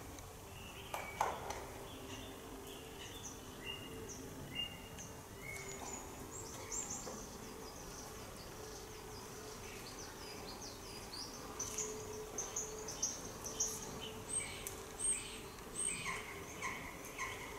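Small birds chirping and twittering in quick, short calls, busier in the second half, over a steady low hum.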